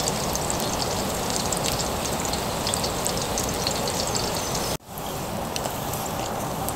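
Sausages and bacon sizzling in fat on a griddle pan, a steady hiss with many small crackles. After a brief break about five seconds in, bread sizzles as it fries in the bacon grease.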